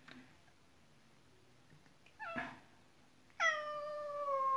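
Domestic cat meowing twice: a short meow about two seconds in, then a long drawn-out meow near the end that drops in pitch at its start and then holds steady.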